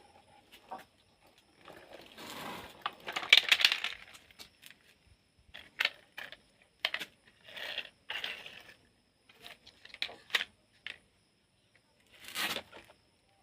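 Small toys being handled: scattered clicks and knocks with a few short bursts of rustling, the loudest just after the start and again near the end.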